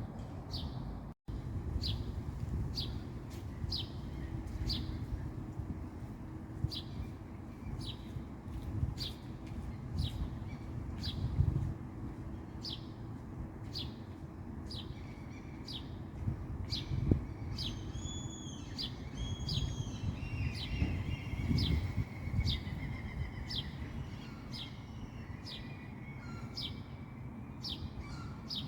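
A small songbird repeating a short, high chirp over and over, a little more than once a second, while a second bird sings briefly about two-thirds of the way through. A steady low rumble runs underneath.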